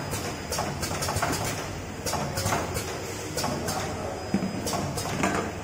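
Automatic two-head motion filling and capping machine running: a steady low hum from the conveyor and motors, with irregular clicks and clacks as pump bottles move through the capping heads.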